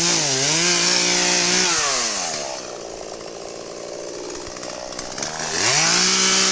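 Chainsaw engine running at high revs with a brief dip just after the start. The throttle is released at about two seconds and the saw drops to a lower, quieter idle, then it revs back up near the end.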